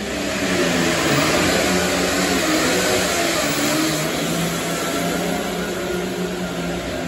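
Pulling tractor's engine running flat out under heavy load as it drags a weight-transfer sled, echoing inside a large metal arena. It grows louder about a second in, then eases off slightly toward the end.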